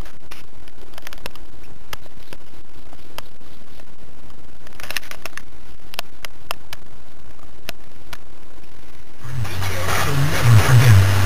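A low steady hum with scattered sharp clicks, then, about nine seconds in, louder car-cabin noise of engine and road.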